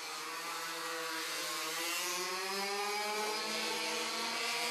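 A vehicle engine running with its pitch rising slowly and steadily as it speeds up.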